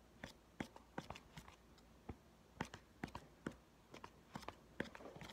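Faint, irregular clicks and taps of hands working in a clear plastic bowl of slime ingredients, roughly two or three a second.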